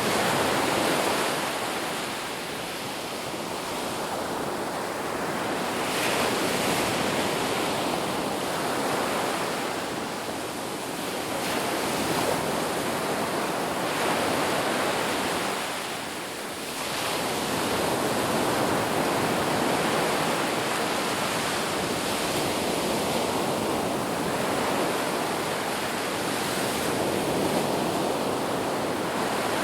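Sea waves breaking and washing on a shore, a continuous rushing surf that swells and eases, with a brief lull about halfway through.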